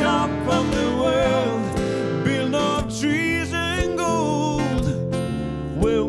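Acoustic guitar strummed in a steady rhythm while a woman and a man sing together.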